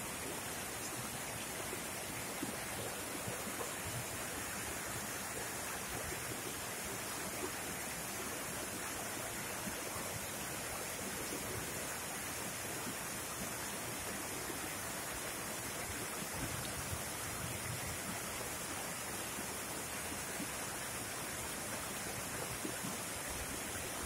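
Small mountain stream cascading over boulders in a rocky bed: a steady, even rush of water.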